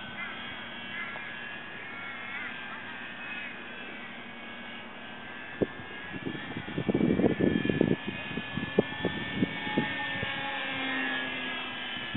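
Electric motor and propeller of a 1.4 m HobbyKing RC Spitfire flying overhead at about half throttle: a high whine that wavers and shifts in pitch as the plane moves about. About seven seconds in there is a second or so of low crackling rumble, then a few sharp knocks.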